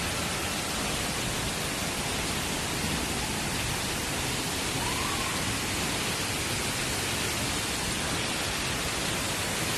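Steady rush of a waterfall: an even hiss of falling water that does not change.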